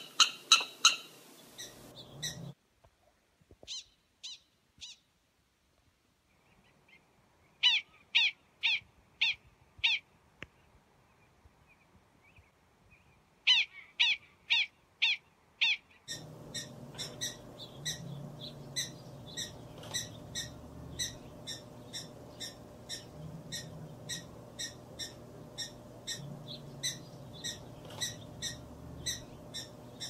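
Prairie dog barking calls: short, high, chirp-like barks given in bouts, first a few, then runs of about six in quick succession. From about halfway on, a steady run of about two barks a second over steady background noise.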